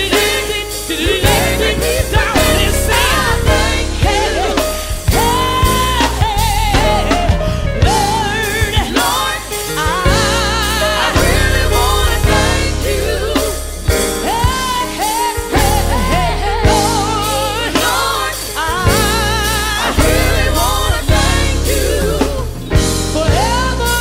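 Gospel song playing: a singer's voice with a wide vibrato over a band with a steady bass line and drums.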